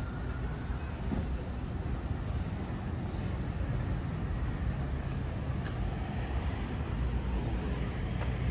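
City street traffic: a steady low rumble of road vehicles.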